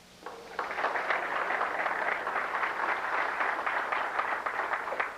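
Audience applauding, starting about half a second in and stopping near the end.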